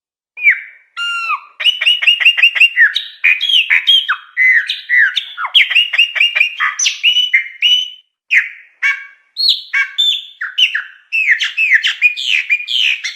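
Chopi blackbird (pássaro-preto) singing a long, fast, varied song of loud whistled and downslurred notes mixed with quick runs of sharp chips, with only a short break about eight seconds in.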